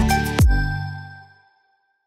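Intro music ending: a last beat and chord about half a second in, which rings out and fades to silence.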